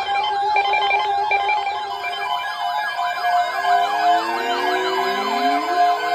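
Several weather alert radios sounding their alarms at once for a severe thunderstorm watch: overlapping siren-like tones sweep quickly up and down, with rapid beeping and a steady tone underneath. About three seconds in, slower rising siren glides join in.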